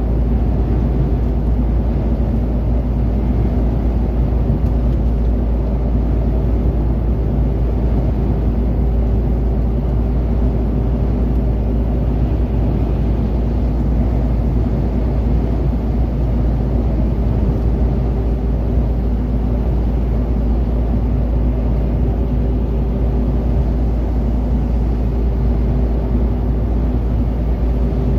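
Lorry's engine and tyre noise heard inside the cab while cruising on a motorway: a loud, steady low rumble with an even hum over it.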